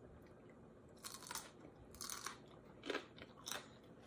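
Faint crunching of a person biting into and chewing a fresh, crisp cayenne pepper: about four short crunches, the first about a second in.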